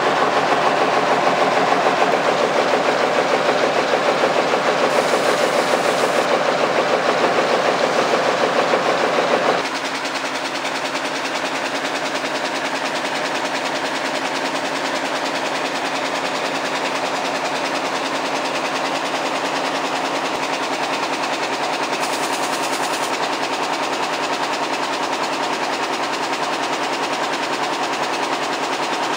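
Air jet loom weaving denim, running at speed with a loud, rapid, steady clatter. About ten seconds in the sound drops a little quieter and duller, then runs on evenly.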